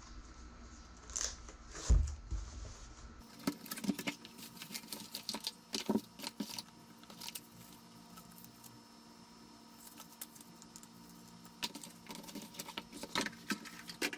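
Irregular light clicks, taps and rattles of the keyboard and its accessories being handled, with one louder knock about two seconds in. Faint background music stops about three seconds in.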